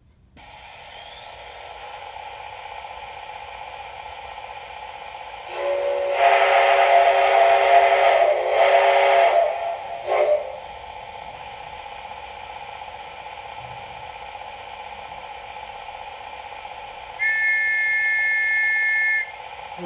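Sound decoder in an Electrotren HO model of the RENFE Mikado 141-2109 steam locomotive, playing through the model's small speaker: a steady steam hiss with the engine standing, then a long deep chime whistle blown twice, with a short toot after it. Near the end a high two-note whistle sounds for about two seconds.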